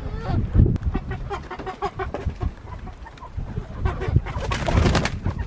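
Chickens clucking in a run of short calls, over a steady low rumble of wind on the microphone that surges in a hissing gust about four seconds in.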